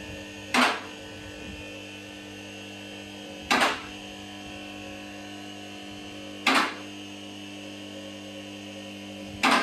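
Two-post hydraulic car lift raising a vehicle: the electric hydraulic pump motor hums steadily while the lift's safety latches clack loudly four times, about three seconds apart, as the carriages climb past each lock position.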